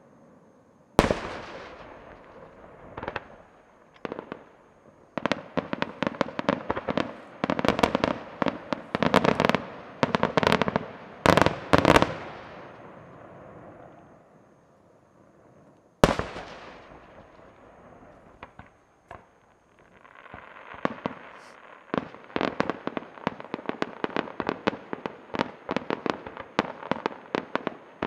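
Aerial fireworks shells bursting. A single heavy bang about a second in, a few lighter ones, then a rapid barrage of bangs from about five to twelve seconds. Another single heavy bang comes at about sixteen seconds and trails off slowly, and dense rapid pops fill the last third.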